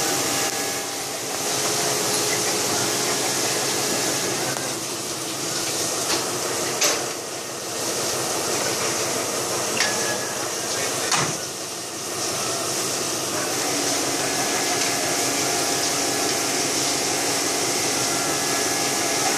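Hose spray of water hitting a locomotive's steel roof and cab, a steady hiss with a low steady hum underneath. Three sharp knocks stand out in the middle.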